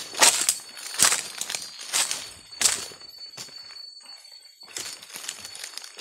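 Footsteps crunching through dry leaf litter and twigs, about one step a second, louder for the first three seconds and softer after that.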